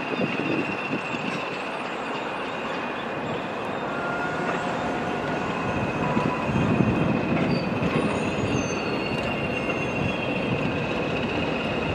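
Train of Mk3 coaches rolling slowly along the siding: a steady low rumble of wheels on rail with a continuous high-pitched wheel squeal, the rumble swelling a little around the middle.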